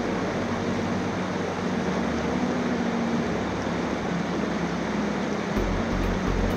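Steady rush of a rain-swollen stream flowing fast over rocks. About five and a half seconds in, a pulsing low rumble joins it.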